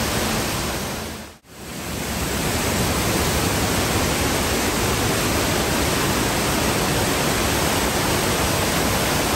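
Steady rushing of an indoor waterfall spilling over artificial rockwork. About a second and a half in, the sound fades out almost to nothing and comes straight back.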